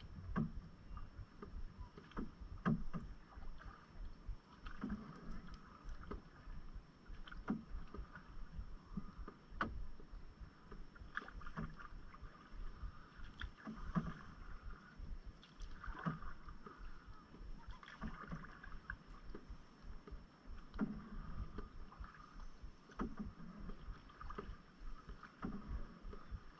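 Canoe being paddled: a paddle stroke roughly every two seconds, each with a splash of water and a light knock, over a low wind rumble on the microphone.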